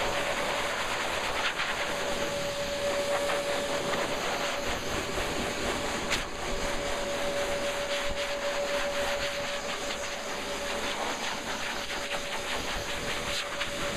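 Dog grooming dryer blowing air into a thick coat: a steady rush of air with a steady motor whine running under it.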